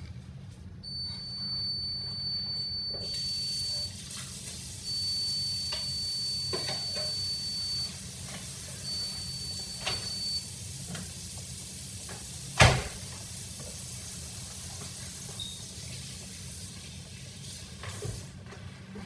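Food frying in a hot pan, a steady sizzling hiss, over a low hum. A steady high tone sounds three times in the first ten seconds, and a single sharp knock comes about twelve and a half seconds in.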